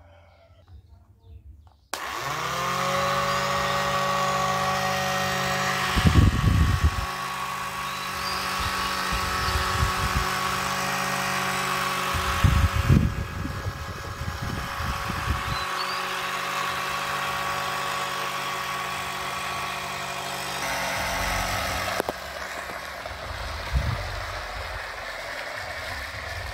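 Two small DC motors spinning plastic propellers on a homemade can-built toy plane, starting about two seconds in with a brief rise in pitch and then running with a steady whine and hum. Low rumbling noise comes in twice, around a quarter and half way through.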